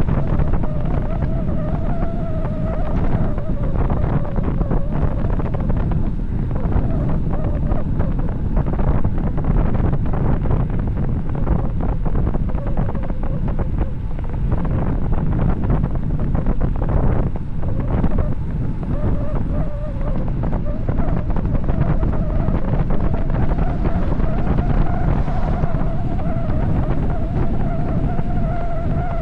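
Wind rushing over the microphone of a bicycle descending at high speed, with a faint wavering whine running through it.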